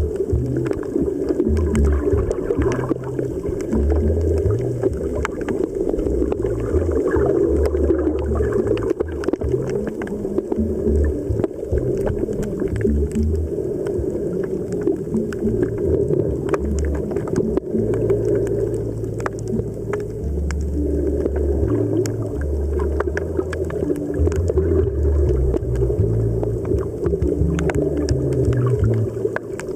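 Background ambient music: low held bass notes that change pitch every second or so over a dense, steady drone, with faint clicks.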